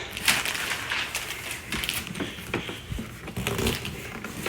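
Cardboard box being torn apart by hand, an irregular run of ripping, crunching and crackling noises.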